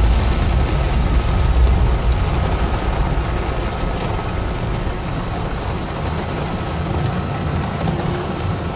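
Heavy rain and wind on a car, heard from inside the cabin: a steady hiss over a low rumble that is strongest in the first two seconds, with one sharp click about four seconds in.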